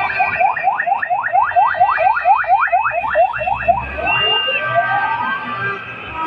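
Ambulance siren in its fast yelp mode, rising sweeps at about five a second. About four seconds in it changes to a short steady tone and then a slow rising wail.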